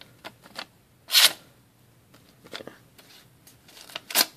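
Folding knife blade slicing through a post-it note in short, hissy strokes: two strong cuts, about a second in and near the end, with a fainter one between. The blade is razor sharp out of the box.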